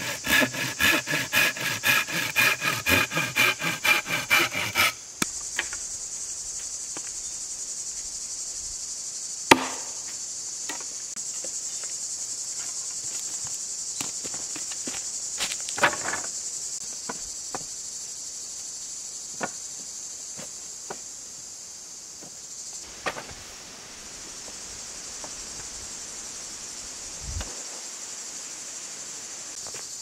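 Hand saw cutting through a green wooden post in quick back-and-forth strokes, stopping about five seconds in. Then a steady high drone of insects, with a few sharp knocks of poles being handled and a low thump near the end.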